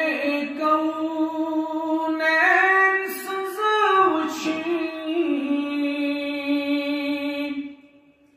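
A man singing a naat (an Urdu devotional hymn in praise of the Prophet) unaccompanied into a microphone, holding long notes that step up and down in pitch with ornamented turns. The phrase fades out near the end.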